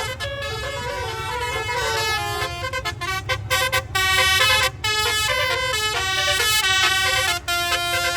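Bus telolet horn, a set of twelve roof-mounted trumpets driven by an electronic telolet module, playing a tune in stepped notes with several pitches sounding together. It breaks off briefly twice. A low rumble runs underneath.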